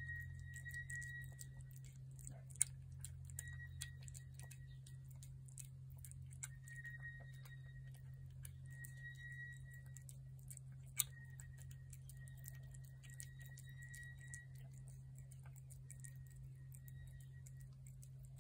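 A cat eating wet food from a plate: quick, small chewing and licking clicks, with two sharper clicks about two and a half seconds in and about eleven seconds in. Under them is a steady low hum and a faint high tone that comes and goes.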